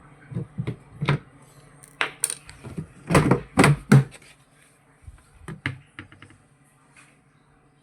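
Irregular clicks, knocks and small metallic clinks of hard parts and tools being handled on a washing machine's spin dryer, with the heaviest knocks about three to four seconds in, over a faint steady hum; the clatter dies away near the end.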